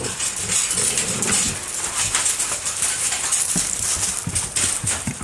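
Several dogs moving about on gravel and a metal platform: paws scuffling and scrabbling, with a few dull thumps between about three and a half and five seconds in.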